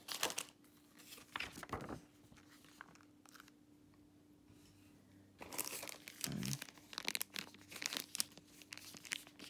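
Plastic snack wrappers crinkling and rustling as they are handled, in two spells: a few short crinkles in the first two seconds, a pause of about three seconds, then denser crinkling through the second half.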